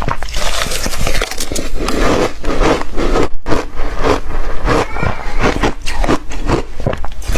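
Ice being bitten and chewed: a rapid, irregular run of crisp crunches and scraping grinds.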